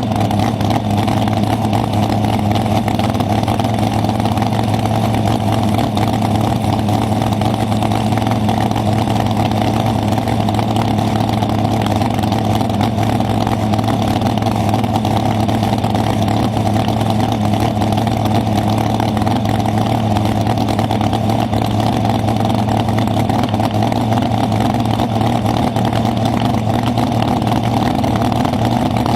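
A race car engine running steadily at one constant speed, with a low, even drone and no revving.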